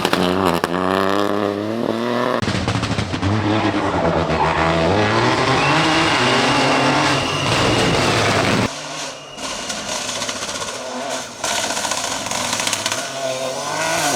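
Peugeot 208 Rally4's 1.2-litre turbocharged three-cylinder engine at full throttle on a rally stage. It rises in pitch and drops back at each gear change several times, then the sound drops away abruptly about two-thirds of the way in and runs on quieter and rougher.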